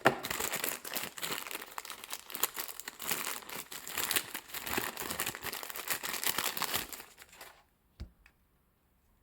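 Packaging crinkling and rustling as an accessory is unwrapped by hand, stopping about seven and a half seconds in; one short knock follows a little later.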